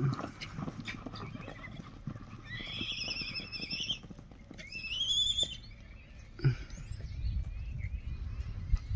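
A horse whinnying twice, each a quavering high call, the second rising in pitch. Under the calls are scuffing and rustling on dry ground and a couple of sharp knocks.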